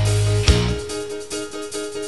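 Opening theme music of a TV news programme: a held low note, a sharp hit about half a second in, then lighter repeated notes.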